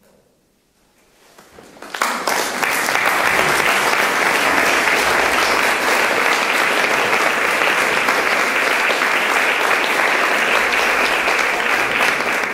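Audience applauding in a hall: a few scattered claps about a second in, swelling quickly into full, steady applause.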